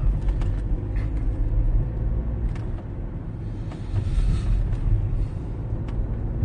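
Steady low rumble of a car's engine and road noise heard from inside the cabin while driving, with a few faint ticks.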